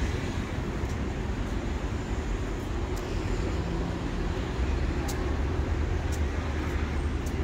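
Street ambience dominated by a steady low rumble of road traffic, with a few faint short ticks.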